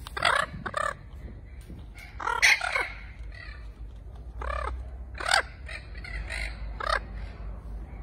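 Spix's macaws calling: a run of about eight short calls at uneven gaps, each rising then falling in pitch, the loudest about two and a half seconds in.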